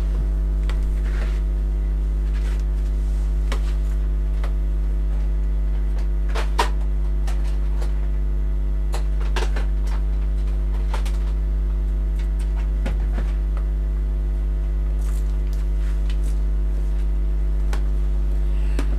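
Steady low electrical hum, with scattered clicks and knocks from rummaging through drawers and storage boxes. The sharpest knock comes about six and a half seconds in.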